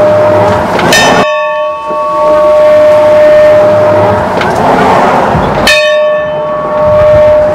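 Church bell struck twice, about a second in and again a little past the middle. Each strike rings on, its hum sustained between strikes.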